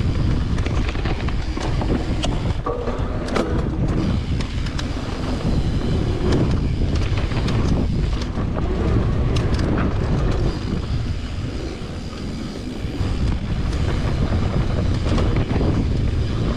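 A mountain bike ridden along a dirt trail: wind buffets the microphone over a steady rumble of tyres on the ground, with scattered sharp clicks and rattles.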